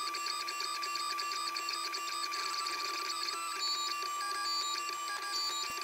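Stepper motors of a Shapeoko 3 XXL CNC moving a J Tech laser head, whining in tones that jump up and down in pitch as the machine changes speed and direction, over a steady high hum.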